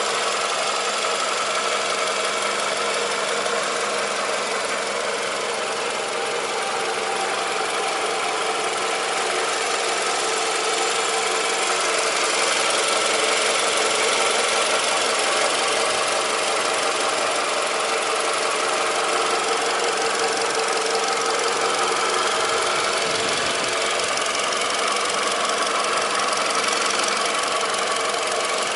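Toyota Camry 2.4-litre VVT-i four-cylinder engine idling steadily with the bonnet open, heard close up in the engine bay. It runs smoothly with no bad sounds: a healthy engine at about 100,000 miles.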